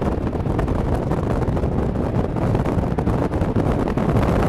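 Strong storm wind buffeting the microphone: a loud, steady rushing noise.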